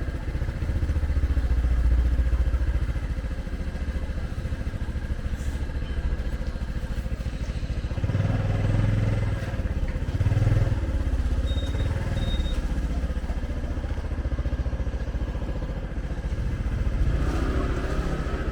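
Motorcycle engine running steadily with street traffic noise, swelling a few times, and two short faint high beeps about two thirds of the way through.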